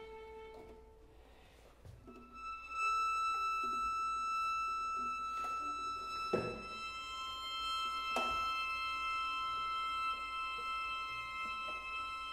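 String quartet playing: a held low note fades away, and after a brief lull a high violin note is sustained with short lower notes beneath it. Two sharp attacks ring out about six and eight seconds in.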